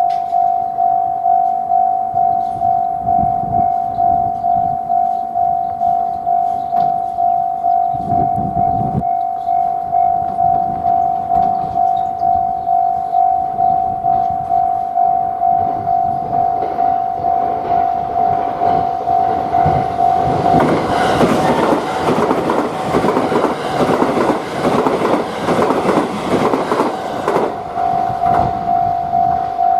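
Japanese railroad crossing warning bell ringing in a fast, even kan-kan rhythm. Partway through, a train passes over the crossing with a loud clatter of wheels on the rails that drowns out the bell. The bell is heard again near the end.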